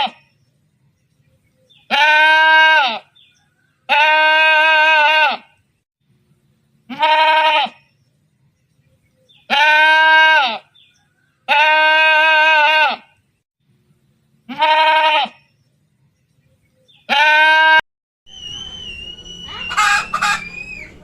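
Sheep bleating: seven separate calls of about a second each, one every two seconds or so, each with a wavering, quavering voice. Near the end the sound changes to a noisier farmyard stretch with a high, wavering call.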